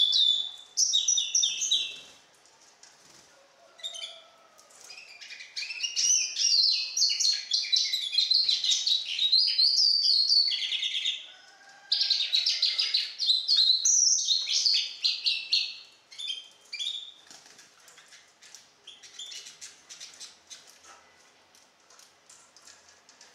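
A young goldfinch × canary hybrid (a four-month-old saka melezi) singing long phrases of rapid, high twittering trills. It is a juvenile's developing song, tutored on nightingale song. The phrases break off near the end into fainter, scattered notes.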